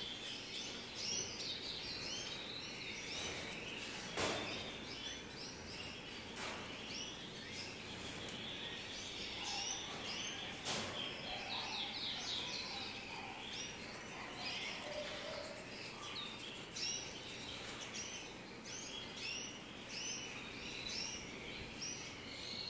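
Canaries chirping: many short high notes overlapping over a steady hiss, with two sharp knocks, about four and eleven seconds in.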